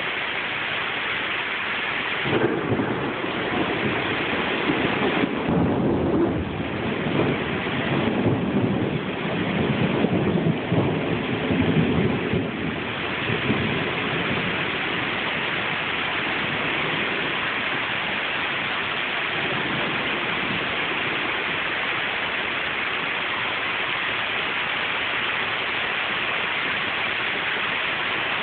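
Heavy rain pouring steadily, with a big roll of thunder a couple of seconds in that rumbles with several swells for about ten seconds before fading back into the rain.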